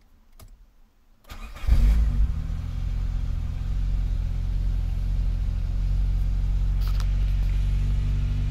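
Car engine started with the key on a freshly replaced battery: a brief crank about a second in, catching almost at once, then idling steadily, heard from inside the cabin.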